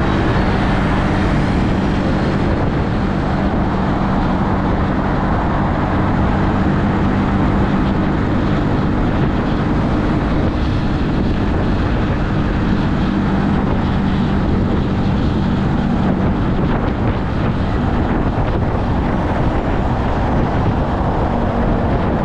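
Keeway Superlight 125's small V-twin engine running at a steady cruise, its note held even, under wind noise on the microphone and road noise.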